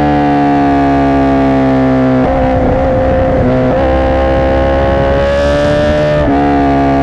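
Honda CBR1000RR Fireblade's inline-four engine held at high revs through a Racefit aftermarket exhaust, a steady high tone. The revs dip about two seconds in, climb slowly back, and step up near the end.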